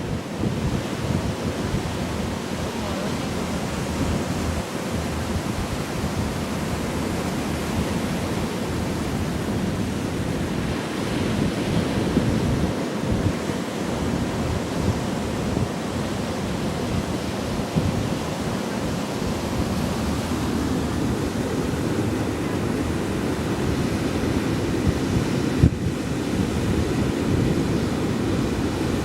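Surf washing onto a beach in a steady, continuous rush, with wind buffeting the microphone.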